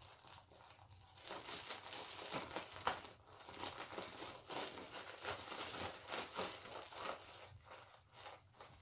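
Plastic zip-top bag filled with shaving cream and paint, crinkling irregularly as a child's hands squeeze and knead it.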